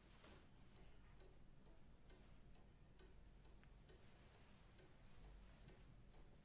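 Clock ticking faintly and evenly, about two ticks a second, in a quiet room.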